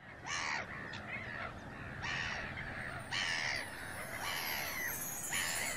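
Seagulls calling, one cry about every second.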